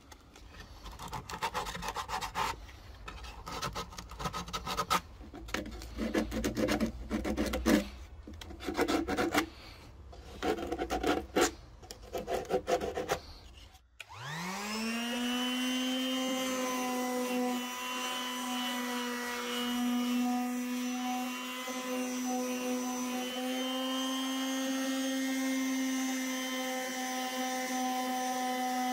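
Hand sanding a pine board with a folded square of abrasive paper: short spells of scratchy rubbing strokes. About halfway through, a Makita electric sander starts, its pitch rising as it spins up, then it runs with a steady hum.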